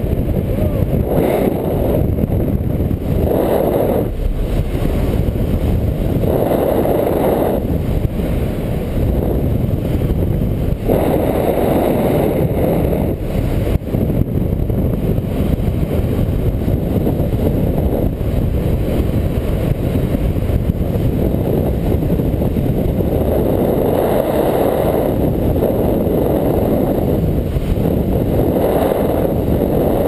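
Airflow buffeting the camera microphone in paraglider flight: a loud, low rushing that swells and eases every few seconds.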